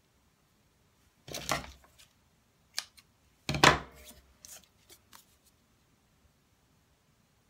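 Cardstock and paper rustling as hands handle a paper treat basket, twine and a paper tag: two louder rustles about one and a half and three and a half seconds in, followed by a few light ticks and taps.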